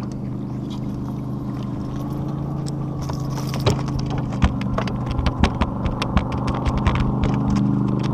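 A boat motor runs with a steady hum, and from about three seconds in, a rapid scatter of sharp clicks and knocks sounds over it.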